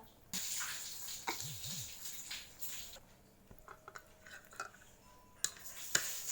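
Eating sounds: a person chewing instant fried noodles (mie goreng), with soft mouth noises and a few sharp clicks near the end.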